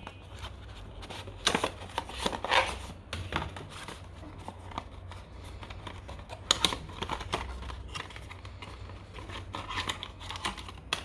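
Rustling and clicking of packaging as accessories are taken out of a phone's cardboard box, in short irregular bursts over a low steady hum.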